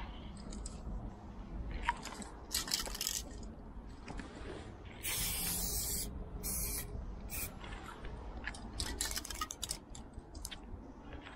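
Aerosol spray-paint cans hissing in repeated bursts as paint goes onto a train car's metal side: a longer spray of about a second about five seconds in, and a quick run of short sprays near the end.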